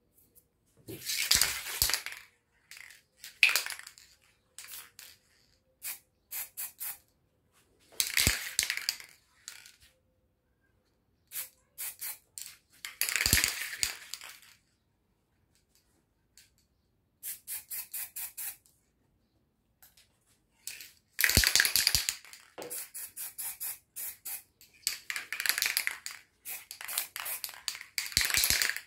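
Aerosol spray paint can spraying in about five short hissing bursts of a second or two each. Between the bursts come short runs of quick rattles as the can is shaken.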